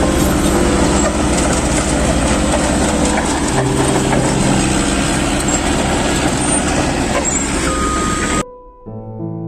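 Dense road traffic noise, with vehicle engines running close by over a steady rumble and a short steady tone near the end. About eight seconds in it cuts off abruptly and soft piano music starts.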